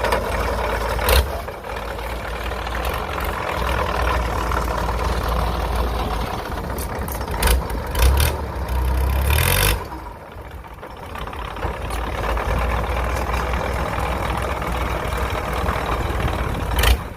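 Kubota DC-105X combine harvester's diesel engine running steadily, with several loud knocks: one about a second in, a few near the middle and one near the end.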